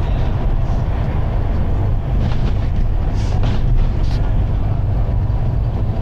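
Volvo B9TL double-decker bus's six-cylinder diesel engine running under way, a steady low rumble heard from the top deck, with a few short hisses between about two and four seconds in.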